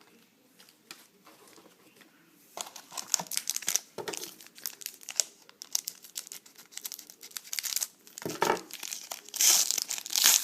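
A trading-card pack wrapper crinkling and tearing as it is opened by hand. It is quiet with a few light clicks for the first couple of seconds, then the crinkling grows dense and is loudest near the end.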